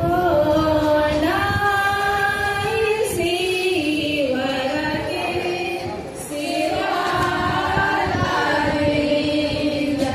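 A group of voices singing a slow song in unison, with long held notes and a short break about six seconds in.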